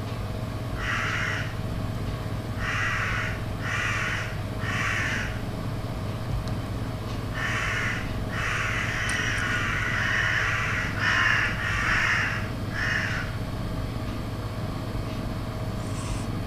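Crow cawing: four harsh caws about a second apart, then after a pause a longer run of caws and three more, over a steady low hum.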